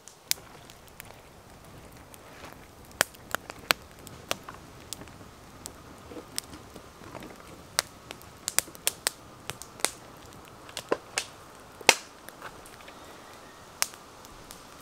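Wood campfire crackling, with irregular sharp pops over a low steady hiss.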